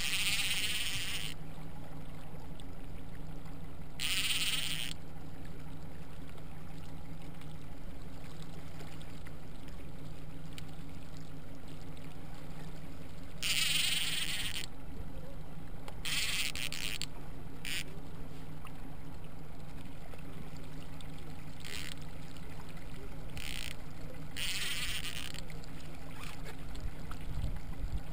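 Fishing reel's drag buzzing in about eight short bursts, each a second or less, as a hooked fish pulls line off, over the steady low hum of an outboard motor running.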